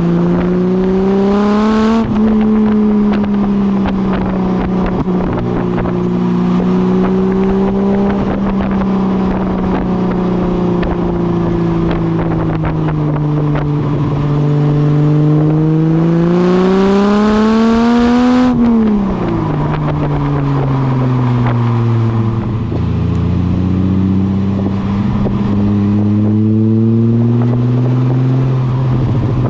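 Ford AU Falcon 4.0-litre inline-six running through Pacemaker extractors, a high-flow cat and a 2.5-inch catback with a centre muffler. The engine note holds fairly steady, then climbs for a few seconds about two-thirds through and drops away sharply. It dips low, rises briefly and settles at a lower, steady pitch.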